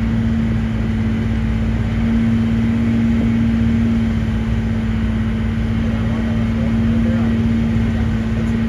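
Boat engine running steadily, a low rumble with a constant hum.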